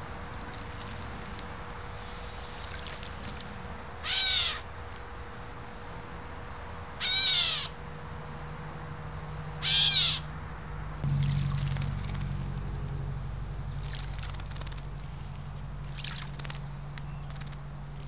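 Gray catbird giving three mew calls, each about half a second long and a few seconds apart. In the second half there are faint splashes as the bird bathes in the bird bath.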